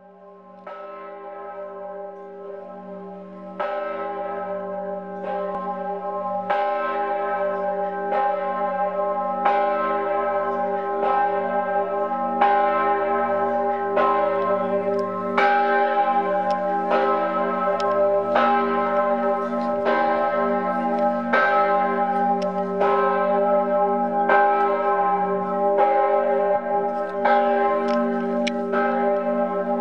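Church bells ringing, a new stroke about every second and a half, each one ringing on under the next. The peal fades in over the first few seconds.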